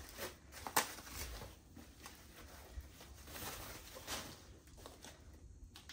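Faint rustling of white paper wrapping as a handbag is unwrapped and lifted out, with a couple of sharp crinkles in the first second.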